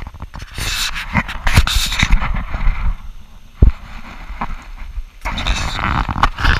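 Wind buffeting an action camera's microphone in gusts, with sharp knocks from the camera being handled and swung around.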